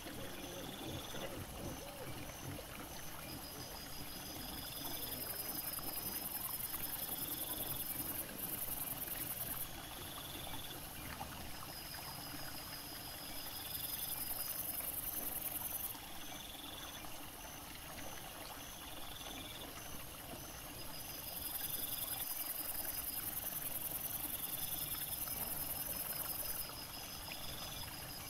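Night forest ambience beside a small stream: a steady faint trickle of water, with insects chirping in high, evenly pulsed trains and a short call repeating every second or two.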